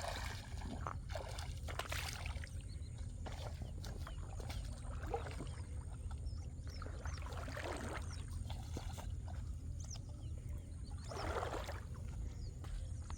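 Water splashing and sloshing in short irregular bursts a second or more apart, the strongest near the end, over a steady low rumble.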